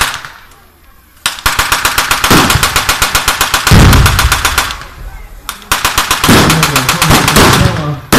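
Machine gun firing blanks in long rapid bursts. The firing starts about a second in and lulls briefly around the middle before a further burst.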